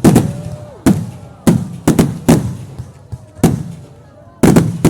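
Fireworks exploding in an irregular series of about eight loud bangs, each trailing off in a low rumble, with two bursts close together near the end.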